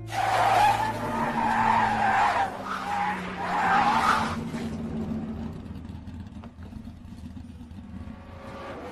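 Animated race car's tires screeching in a long hard-braking skid, which fades after about four and a half seconds and leaves a low steady rumble.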